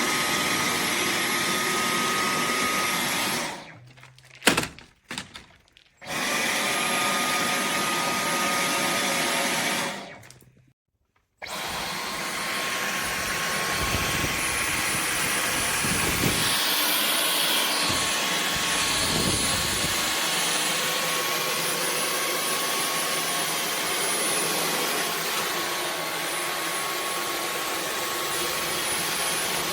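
Dyson V15 Detect cordless stick vacuum running with a steady whine. It cuts out twice, briefly each time, and starts up again, with a sharp knock during the first pause.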